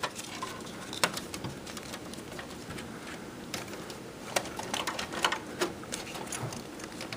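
Light clicks and rustling of an IDE ribbon cable being handled and pressed into a plastic cable holder inside a computer case. One click comes about a second in, and a quick run of clicks comes a little past the middle.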